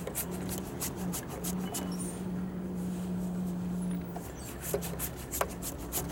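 Large flat synthetic brush scrubbing paint across a primed canvas in quick short strokes, several a second, with a pause of about two seconds in the middle. A steady low hum runs underneath.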